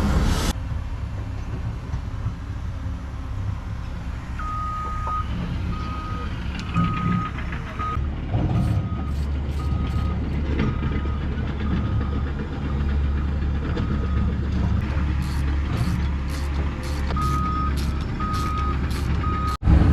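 Atlas Copco PowerRoc T45 drill rig's diesel engine running steadily, with an alarm beeping in short repeated beeps, about one a second, that stops for a few seconds and starts again near the end.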